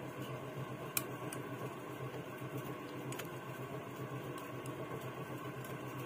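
Small clicks and taps of a phone circuit board being handled and seated in a spring-loaded board holder, with a sharp click about a second in and a smaller one around three seconds in, over a steady fan-like hum.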